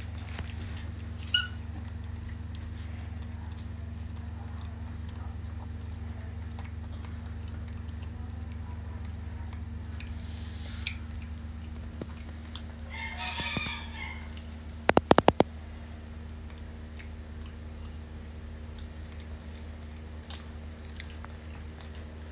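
A steady low hum runs underneath, with a short squeak about a second in. Near the middle there is a brief squealing call, followed straight away by a quick run of about five sharp clicks, the loudest sounds here.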